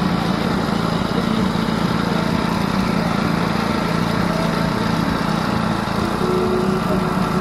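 A steady, unbroken mechanical drone, like a motor running, with a hiss spread over it.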